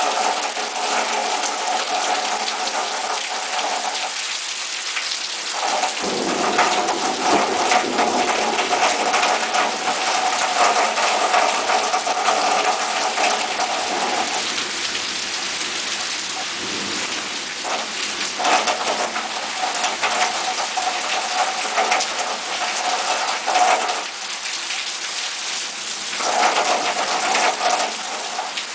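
Heavy rain pouring on trees and foliage, a dense steady hiss, with a low rumble of thunder starting about six seconds in and lasting roughly ten seconds.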